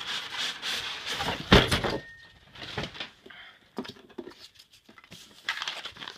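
Cardboard and paper rustling and scraping as a boxed item is handled and pulled from its shipping box, with a loud knock about one and a half seconds in. After that come scattered light taps and short crinkles.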